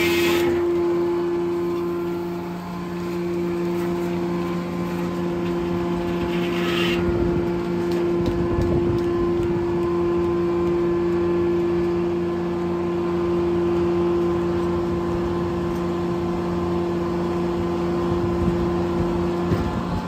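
Circle sawmill running: the blade finishes a cut through a log about half a second in, then the mill runs on with a steady hum from its power unit and spinning blade. A brief hiss comes about seven seconds in.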